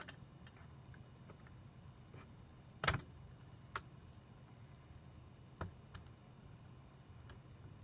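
A few light clicks and knocks from plastic and metal parts being handled inside an opened 2010 Mac Mini as its power connector is reseated. The loudest comes about three seconds in, and they sit over a faint low hum.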